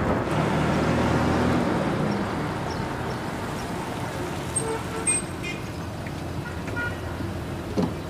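Minibus engine running as it drives along the road, a low steady rumble that is strongest in the first two seconds and then eases off. A few short faint tones come about halfway through.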